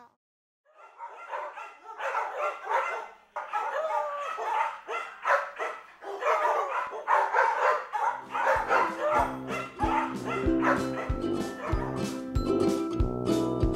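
Dogs barking and yipping in quick short barks for the first several seconds, then music with a steady beat comes in about eight seconds in and carries on.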